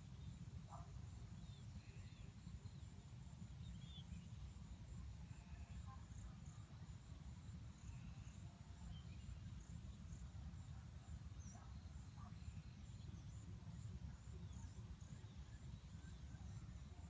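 Faint outdoor ambience: a low steady rumble with a thin high insect-like hum and a few scattered faint bird chirps, and no crowing.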